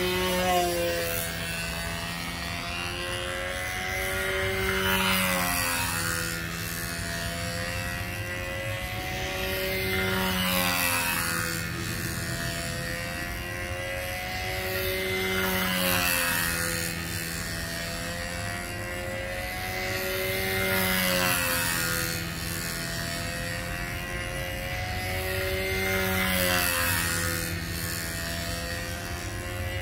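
PA65 two-stroke glow engine on a control-line Tempest 2 stunt model running steadily in flight, its note swelling and bending in pitch about every five and a half seconds as the plane circles past on its lines.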